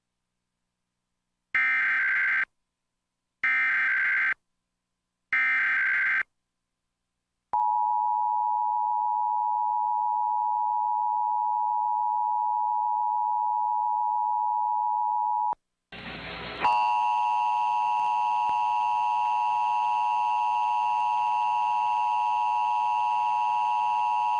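Emergency Alert System test: three short warbling SAME header data bursts, then the two-tone EAS attention signal (853 and 960 Hz) held for about 8 seconds. After a brief break a second, buzzier steady tone with many overtones starts and runs to the end.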